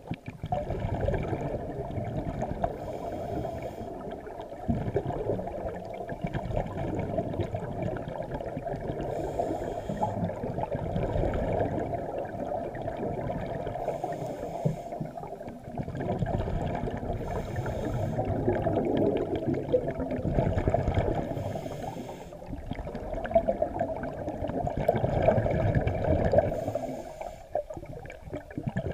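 A scuba diver breathing underwater through a regulator: short hissing inhales every few seconds between long stretches of gurgling exhaled bubbles, all heard muffled.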